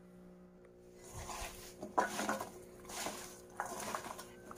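A hand tossing oiled, spiced carrot pieces in a stainless steel bowl: wet rustling, and the pieces clattering against the steel. It comes in several short bouts, starting about two seconds in with one sharp knock.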